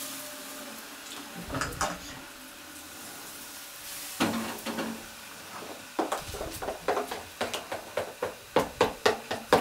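Kitchen utensils clattering: a few knocks of a pan and dishes, then from about six seconds in a quick rhythmic knocking of a utensil on a bowl or board, about three or four strokes a second, getting louder.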